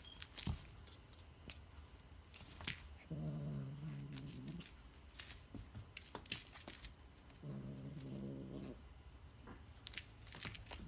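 A cat makes two low, drawn-out growling calls, each a little over a second long, while playing with a toy mouse. Scattered sharp clicks and taps come in between.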